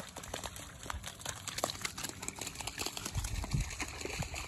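German Shepherd puppies splashing and wading through shallow water, a run of small irregular splashes and wet paw-steps. A low rumble joins about three seconds in.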